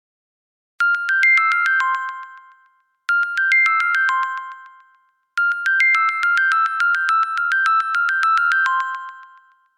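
Firefox OS (Boot2Gecko) ringtone: a short, bright electronic melody of quick high notes, played three times, the third time longer. It starts about a second in.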